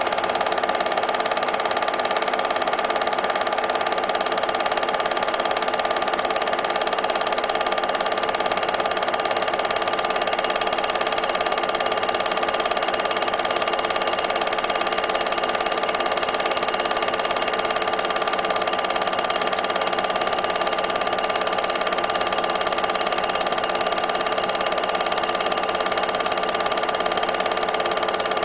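8mm film projector running: a steady mechanical whir with several fixed tones, unchanging throughout.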